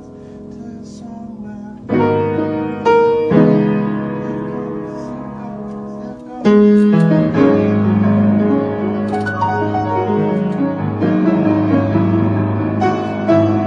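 Piano playing a slow passage of sustained chords. It opens softly, strikes louder chords about two seconds in, and swells fuller about six and a half seconds in.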